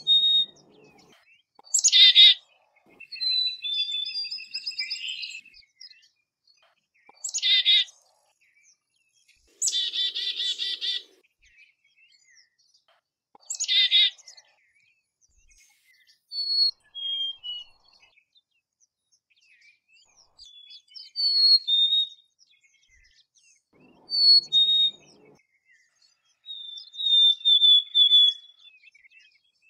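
Black-capped chickadees calling: several harsh, buzzy 'dee' notes of the chick-a-dee call, and clear whistled two-note 'fee-bee' songs, a higher note dropping to a lower one, repeated a number of times.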